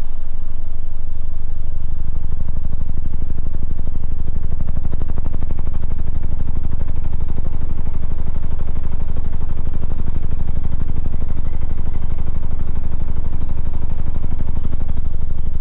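Car-audio subwoofers playing a loud, steady low bass tone during low-frequency SPL testing, the deep fundamental carrying a buzzy, fast-pulsing edge.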